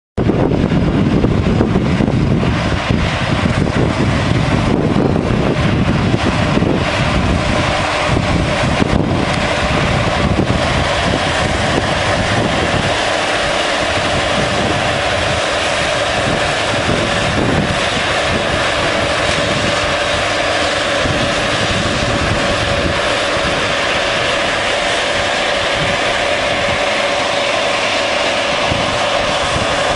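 Claas Lexion 580R combine harvester running, a steady mechanical whine held over continuous machine noise. A deep rumble is strong for the first dozen seconds or so, then drops away.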